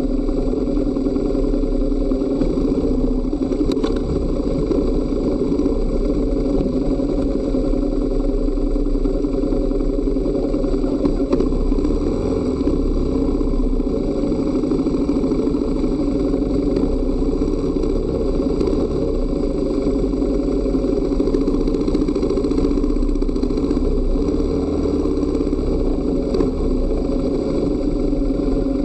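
Dual-sport motorcycle engine running steadily at low speed, with no big revs.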